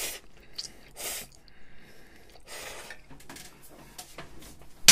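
Person slurping stir-fried cream jjamppong ramen noodles in a few short, breathy pulls. There is a sharp click near the end, the loudest sound.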